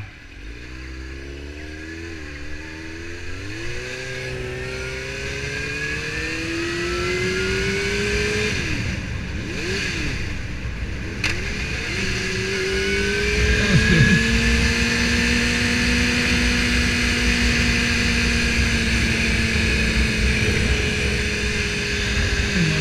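Suzuki GSX-R750 inline-four engine pulling away and accelerating, its pitch rising in steps through the gears. A click comes about eleven seconds in, and after that the engine settles into a steady cruise. Wind rushes over the helmet-mounted microphone throughout.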